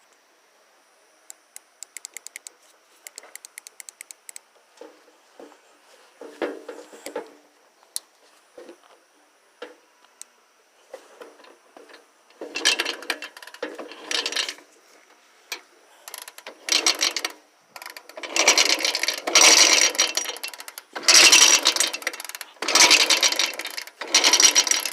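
Suzuki 125 two-stroke dirt bike being kicked over again and again, each kick a second-long mechanical clatter of the kickstarter and the engine turning over without catching: a cold engine that won't start. Light clicking and knocking come before the kicks begin, about halfway in.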